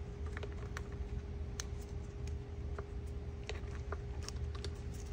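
Scattered light clicks and ticks of wires and small plastic parts being handled and fitted inside the opened plastic housing of a DeWalt DCE100 cordless blower, over a faint steady hum.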